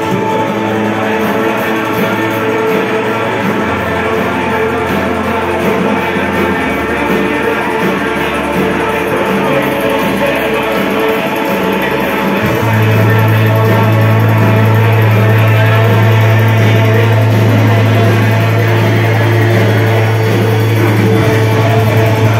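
A live band playing loud music through a PA. About halfway through, a deep held bass note comes in and the music gets louder.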